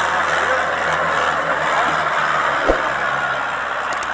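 Mahindra Arjun 555 tractor's diesel engine running steadily under load as it pulls a trolley loaded with sugarcane, with a single brief knock about two-thirds of the way through.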